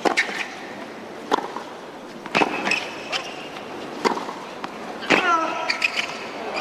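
Tennis ball being hit back and forth in a hard-court rally: sharp racket-and-bounce impacts about every one to one and a half seconds, with brief high squeaks of court shoes. Near the end comes a short falling vocal cry.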